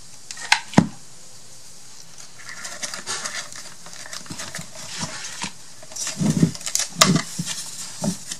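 Craft materials being handled on a tabletop: two sharp clicks, then paper or plastic rustling, then a few more clicks and soft knocks near the end.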